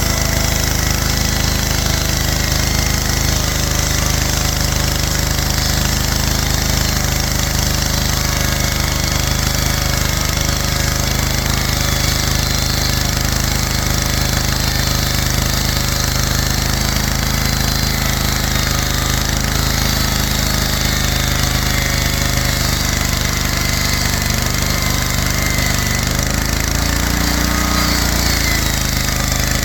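The engine of a DIY portable sawmill running steadily and loudly under way, with a rapid knocking, rattling beat. Its low engine note shifts briefly near the end.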